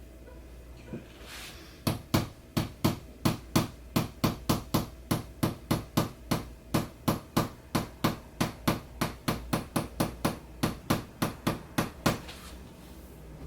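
Rapid, even series of sharp percussive taps, about four a second, starting about two seconds in and stopping near the end, from percussion work on the patient during chiropractic treatment.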